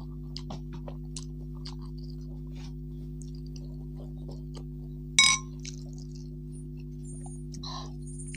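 Close-up eating sounds: soft slurps and small wet mouth clicks while eating noodles from a bowl. About five seconds in, a metal spoon clinks sharply against a ceramic bowl and rings briefly. A steady low hum runs underneath.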